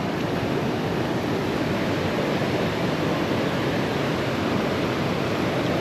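A stream rushing steadily, an even, unbroken rush of water.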